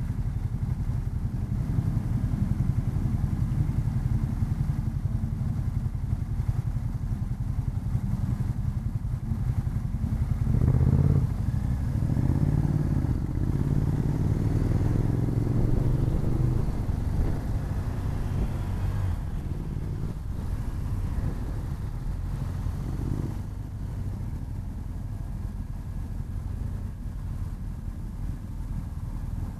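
BMW R1250 GS Adventure's boxer-twin engine running at low speed as the motorcycle rolls off. About eleven seconds in it gets louder, then rises in pitch for several seconds as it accelerates before settling back to a steady run.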